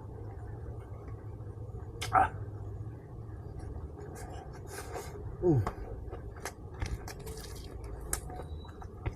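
Close-up eating sounds of pork ribs being chewed: scattered wet clicks and smacks of the mouth, with a louder bite about two seconds in. About halfway through comes a short vocal hum that falls in pitch, over a steady low hum.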